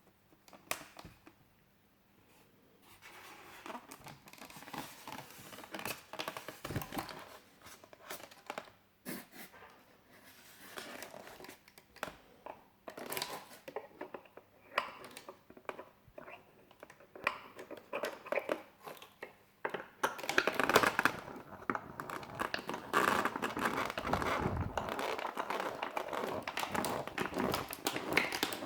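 Packaging being handled during an unboxing: plastic and paper crinkling and tearing, with scattered clicks and scrapes, growing busier and louder about two-thirds of the way through.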